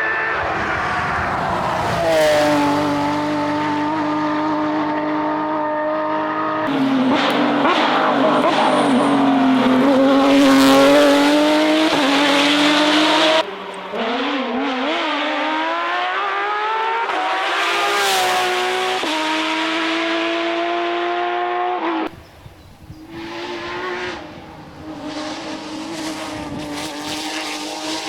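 Porsche rally car engines at high revs, their pitch climbing and dropping through gear changes. Several short passes follow one another with abrupt changes between them, and a quieter stretch comes about three-quarters of the way through.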